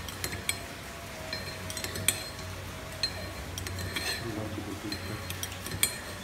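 Metal spoon clinking against a bowl as soup is spooned out, a scatter of sharp light clinks several times.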